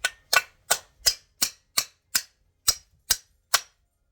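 Hammer striking a metal stud ten times in quick, even succession, about three blows a second, each a sharp metallic clank, driving brass parts out of an industrial plug-in receptacle.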